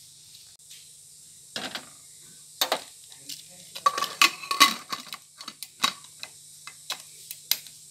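Pressure cooker being set on a gas stove and its lid fitted and locked: a run of metal clanks and clicks, densest and ringing about four to five seconds in.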